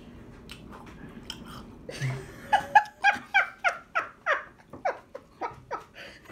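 A woman laughing hard, a rapid run of about a dozen short 'ha' pulses that starts about two and a half seconds in.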